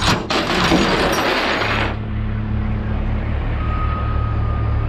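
Metal clattering and jingling for about two seconds, then a heavy tow truck's diesel engine running steadily, with a long steady warning beep coming in about three and a half seconds in.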